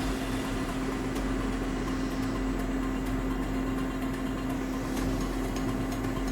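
Steady hum of a small electric blower fan on a soldering bench, holding a constant tone, with a few faint ticks.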